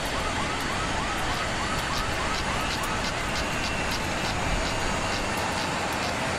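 Steady loud rushing noise with a warbling, siren-like chirp repeating about three times a second that fades after about three seconds, and faint regular ticking.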